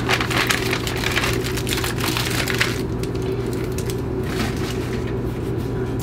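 A paper microwave-popcorn bag crinkling and rustling as it is handled, densest for the first three seconds or so and then sparser. A steady low hum runs underneath.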